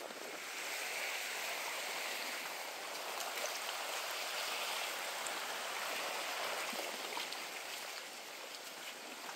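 Steady, even outdoor rush of breeze and lagoon water, with a few faint light ticks.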